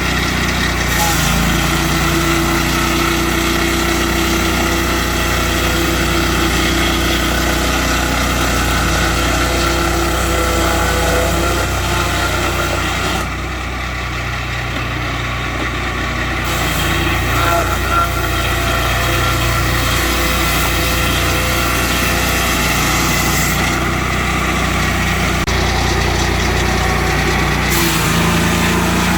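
Portable swingblade circular sawmill's small petrol engine running steadily under power, its sound thinning briefly about halfway through.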